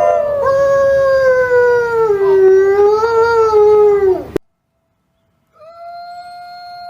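Wolf howling: one long howl that slides slowly down in pitch, wavers, and breaks off sharply about four seconds in. After about a second of silence a quieter steady held tone begins.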